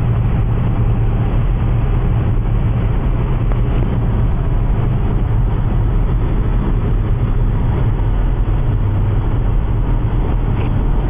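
Steady engine drone and tyre-on-road noise inside a car cruising at motorway speed, unchanging throughout.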